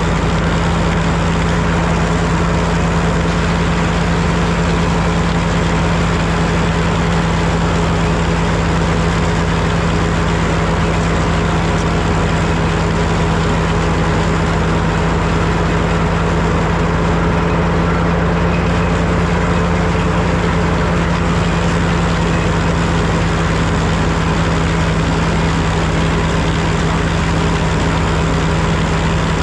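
Super W-6 tractor engine running steadily, belt-driving an antique S.A. Woods wood planer, with a strong, unchanging hum.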